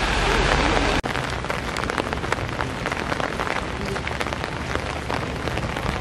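Steady rain falling. About a second in the sound cuts out for an instant, then carries on as a thick patter of many separate drops.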